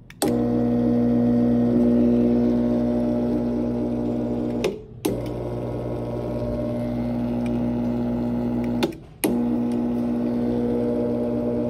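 Rolling Shield tubular roller-shade motor running with a steady hum. It cuts out briefly twice, about four and a half and about nine seconds in, each time with a click, then starts again.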